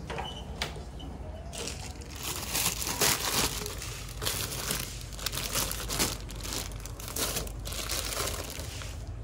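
Plastic bread bags crinkling and rustling as bagged buns are handled and pulled out, in irregular bursts starting about a second and a half in.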